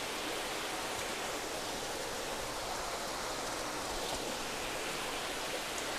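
Steady, even rush of running water flowing through the fish vats of a recirculating aquaculture system.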